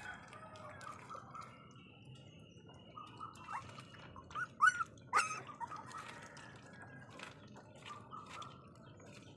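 Puppies lapping milk from a bowl, a run of small wet clicks. About halfway through come a few short rising chirps, the loudest sounds.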